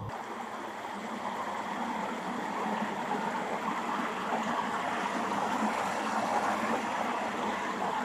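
River water rushing and splashing over rocks in a small cascade, a steady rush.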